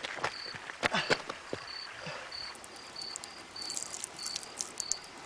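Cricket chirping: one short, high chirp repeating about twice a second. A few sharp knocks sound about a second in, and a cluster of light clicks comes near the end.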